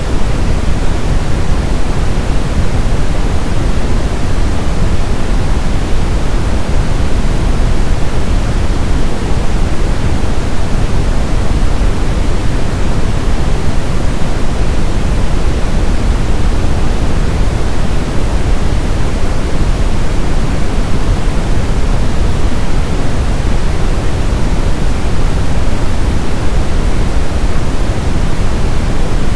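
Brown noise: a steady, even, deep rumbling hiss, strongest in the low end and fading toward the highs, with no change or events.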